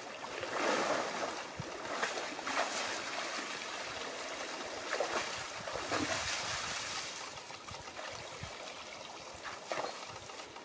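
A moose wading out of a stream and pushing through tall grass: irregular splashing and rustling that comes in surges, with a few sharp snaps.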